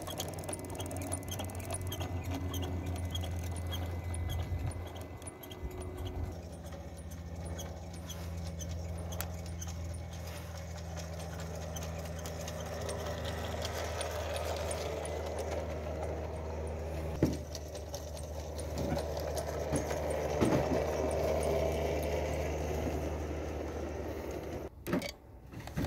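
G-scale Thomas the Tank Engine model locomotive running along garden track with its coaches: a steady electric motor and gear hum under a light rattling of wheels and rolling stock, with a few sharp knocks in the second half.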